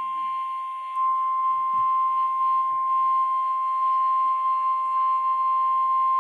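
NOAA Weather Radio warning alarm tone (1050 Hz) from a Midland WR120 weather radio's speaker: one steady, unbroken high beep. It signals that a warning broadcast, here a severe thunderstorm warning, is about to follow.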